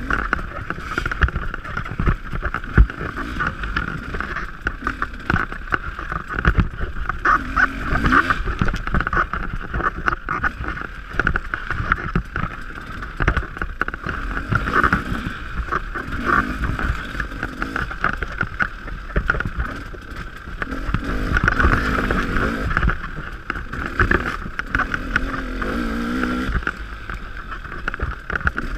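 Dirt bike engine running under load on a rough trail, revving up and falling back several times, with frequent knocks and clatter from the bike bouncing over bumps.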